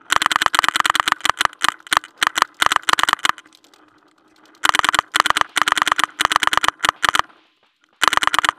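Paintball marker firing rapid strings of shots, about ten a second, in three bursts: a long one of about three seconds, another of about two and a half seconds from a little before the middle, and a short one starting near the end.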